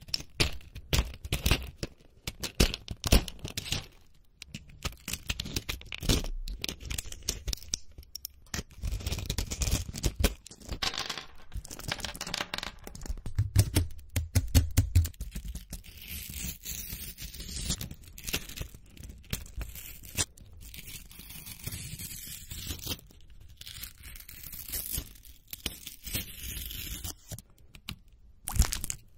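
Pills being pushed out of plastic blister packs through the foil backing: an irregular run of sharp crackles, pops and tearing foil.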